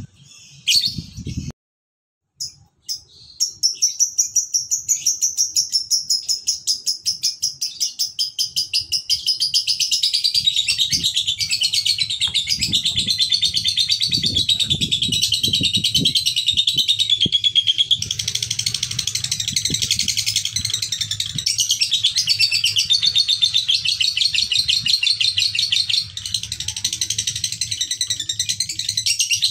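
Male Fischer's lovebird giving 'ngekek', a long unbroken run of rapid, high chattering notes that starts a few seconds in after a short pause and carries on without a break.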